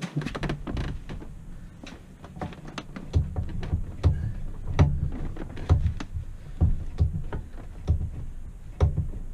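Rear brake pedal of a Honda ST1100 Pan European being pumped after a pad change, to push the caliper pistons back out onto the new pads. It begins with low rumbling handling noise, then from about three seconds in gives a run of dull thuds about once a second.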